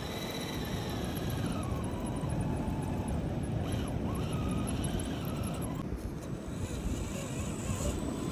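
Electric motors and gearboxes of scale RC crawler trucks whining, the pitch rising and falling with the throttle, over a steady low rumble.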